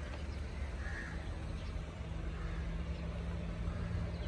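Small Datsun hatchback's engine running at low speed as the car creeps along, a steady low hum. A crow caws faintly a few times, most clearly about a second in.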